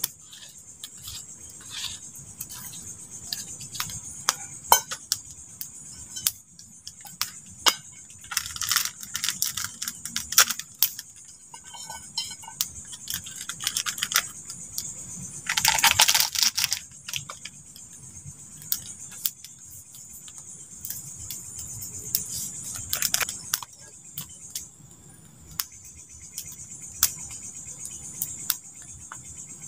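Crickets chirping in a steady high band, over a wood campfire crackling and the sharp clicks and snaps of dry sticks being handled and fed in. A louder rustling snap lasts about a second midway.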